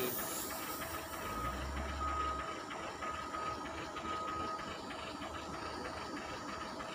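Crushed stone chips pouring from a wheel loader's bucket into a lorry's steel tipper body, a rushing hiss that fades out in the first second or two, over the loader's engine running steadily. A faint short beep repeats about once a second for the first few seconds.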